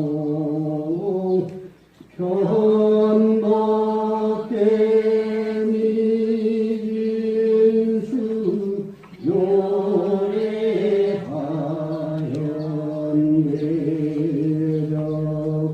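A voice chanting a Korean Buddhist chant in long held notes, stepping slightly in pitch, with pauses for breath about two seconds in and again about nine seconds in.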